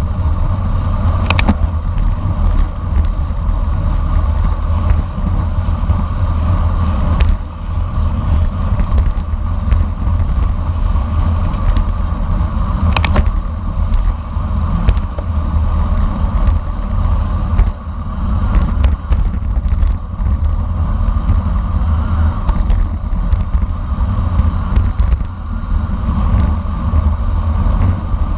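Steady wind noise buffeting the microphone of a camera riding on a racing bicycle at speed, over a low road rumble, with a few sharp clicks.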